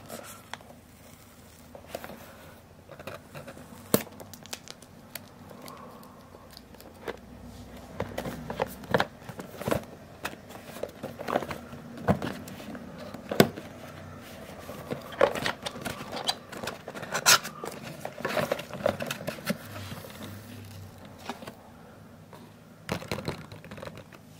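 Sticky tape being peeled off a cardboard product box, then the box lid and cardboard flaps being handled and opened: irregular crinkling, tearing and scraping with many sharp clicks of paperboard.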